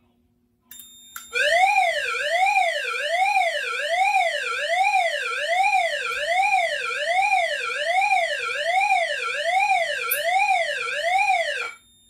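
Fire alarm speaker sounding an electronic tone that sweeps up and down, a little over one sweep a second: the pre-discharge alarm of an agent-release (fire suppression) system whose releasing smoke detector has tripped. It starts about a second and a half in and cuts off abruptly near the end.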